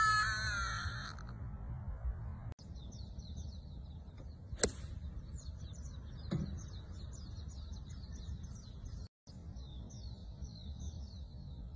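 A golf iron strikes the ball once, a sharp crack about four and a half seconds in, with a fainter knock shortly after. Birds chirp steadily throughout, over a low outdoor rumble. At the very start a woman's high exclamation trails off.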